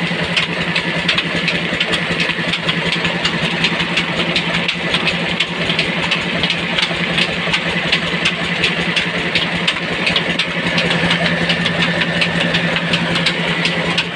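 Village atta chakki (flour mill) running and grinding wheat: a steady hum with a fast, even clatter over it.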